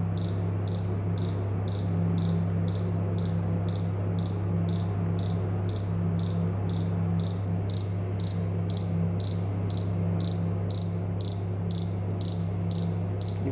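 BW Clip H2S gas detector's alarm beeping rapidly, about four high-pitched beeps a second: it is in high alarm from the H2S test gas fed to its sensor. A steady low hum runs underneath.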